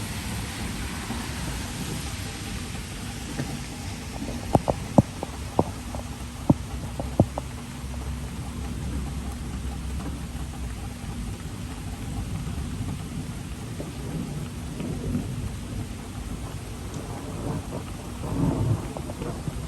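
Steady rain with low rolling thunder, the rumble swelling again in the last few seconds. A short run of about six sharp clicks comes around five seconds in.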